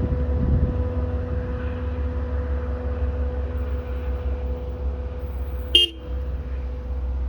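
Diesel commuter-rail locomotive idling: a steady low engine rumble with a constant hum. About six seconds in, one brief sharp blip cuts through.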